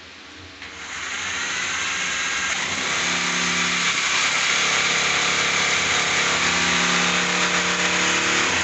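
Electric hammer drill boring a hole into a masonry wall for the concealed cistern frame's mounting. It spins up about a second in, runs steadily under load, and stops at the end.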